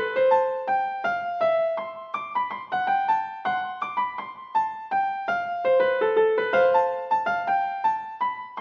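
Background music: a light keyboard melody of short notes that start sharply and fade, several a second.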